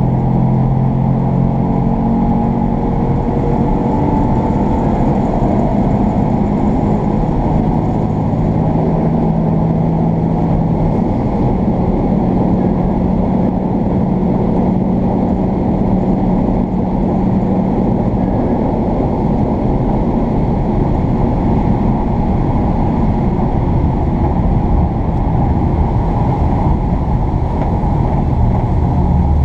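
A motor vehicle running steadily under a loud, even rumble, its engine tones shifting in pitch during the first dozen seconds or so.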